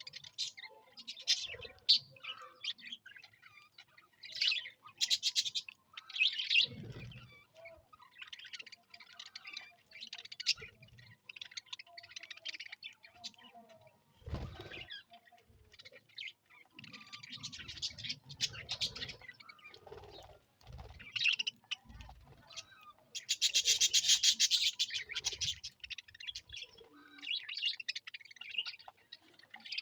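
A colony of budgerigars chirping and chattering, with many short overlapping calls and a louder burst of rapid chatter about three-quarters of the way through. Occasional low thuds sound among the calls.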